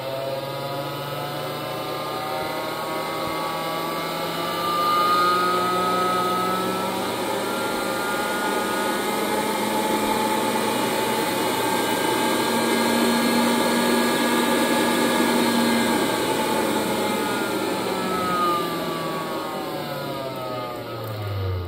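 Presto PopLite hot-air popcorn popper's fan motor whirring as a variac raises its supply voltage toward 120 volts. The fan rises in pitch and gets louder over the first several seconds, holds steady through the middle, then falls in pitch near the end as the voltage is turned back down.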